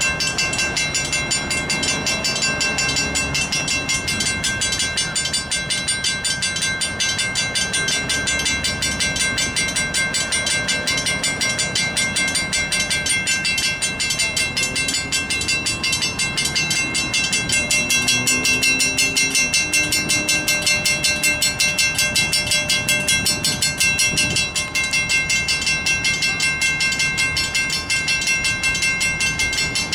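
Western Cullen Hayes mechanical crossing bells ringing steadily in a fast, even rhythm, one of them sped up. Under them, an LIRR Bombardier M7 electric train rumbles past, a little louder from about 18 to 24 seconds in.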